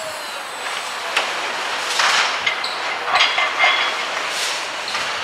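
Metal parts being handled at a hydraulic workshop press: a few knocks and clinks, one of them briefly ringing, over a steady background hiss.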